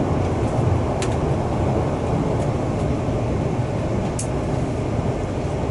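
Interior running noise of a JR Hokkaido limited express train in motion: a steady rumble of wheels on rail, with two short clicks, one about a second in and one about four seconds in.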